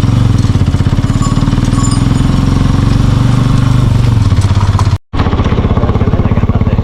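Sidecar motorcycle engine running steadily under way, its exhaust pulsing evenly and rapidly. The sound cuts out for an instant about five seconds in.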